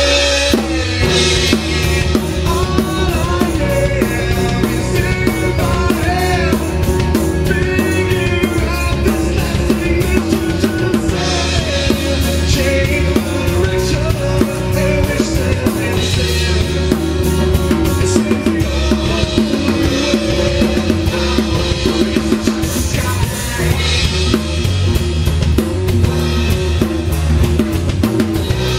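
Live band playing an acoustic rock song: strummed acoustic guitar and bass guitar over a drum kit keeping a steady beat, with a singer's voice at times.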